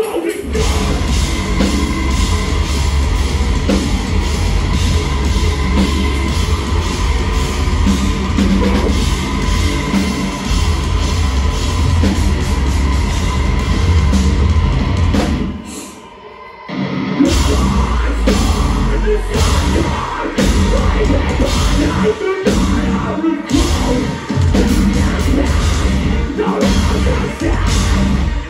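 Metalcore band playing live at full volume, with drums and guitars. The music breaks off for about a second and a half partway through, then comes back in with stop-start hits.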